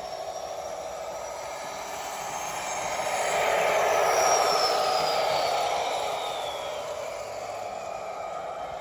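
Märklin model of a DB class 218 diesel locomotive with an ESU sound decoder, running past on the track: its decoder engine sound and running noise swell to their loudest about four seconds in and fade away again, with a high whine that rises and then drops in pitch as it passes.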